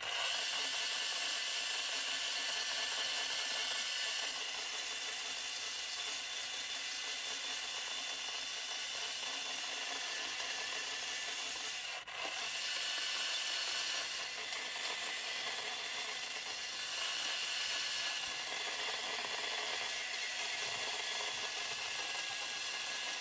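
Stihl battery-powered chainsaw running steadily as its bar nose cuts and shapes wood, a steady high whine over the hiss of the chain through the timber, with a brief break about halfway.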